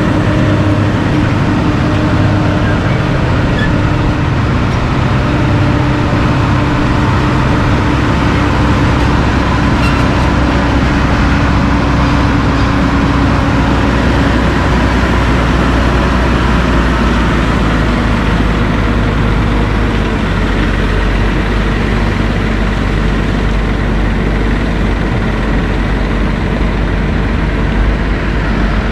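Heavy diesel engines of loaded Kenworth dump trucks with pup trailers, running steadily and loud as the trucks pull out of the rock site at low speed.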